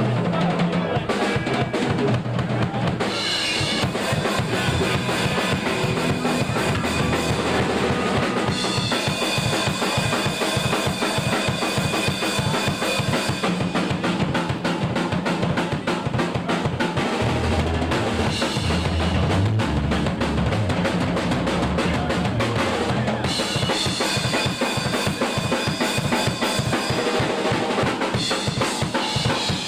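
Music driven by a drum kit, with bass drum, snare and rim shots in a steady fast beat over a moving bass line.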